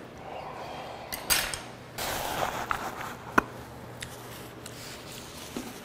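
Eating at a table: chewing and mouth noises with a short breathy stretch about two seconds in, and scattered sharp clicks of chopsticks against tableware, the loudest about three and a half seconds in.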